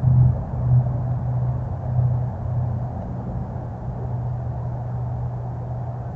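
A steady low rumble with a droning hum, pulsing unevenly for the first two seconds or so and then holding steady.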